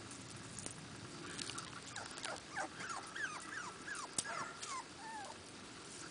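Toy Australian Shepherd puppy whimpering: a run of about ten short, falling whines, roughly three a second, starting about two seconds in and stopping a little past five seconds.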